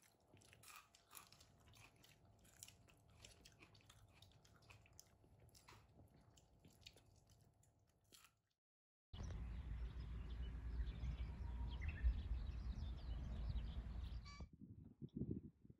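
Faint clicks of chopsticks on dishes and chewing at a dinner table. About nine seconds in, a louder steady rushing noise takes over for about five seconds and cuts off suddenly.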